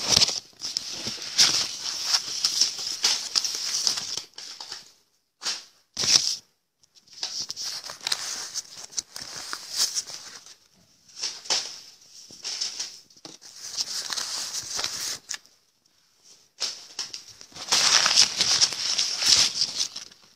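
Paper banknotes rustling and fluttering as they are tossed down from a handful, in crisp bursts of a few seconds with short breaks between.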